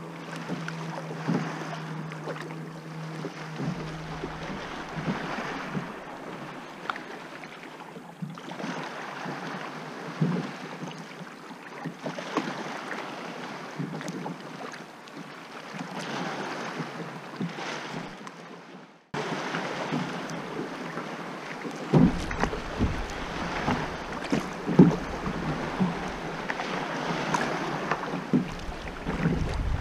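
Kayak paddle strokes dipping and splashing, with water lapping against the kayak's hull. In the later part, wind buffets the microphone with a low rumble.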